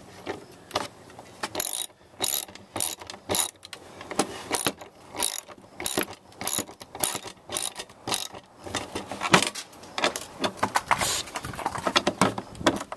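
Half-inch ratchet tightening small nuts onto bolts through a plastic panel: runs of quick pawl clicks on each back-swing, with short pauses between strokes.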